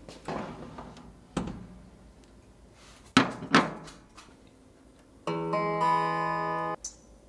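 Four sharp knocks, the last two close together, then a steady held tone of about a second and a half that stops suddenly.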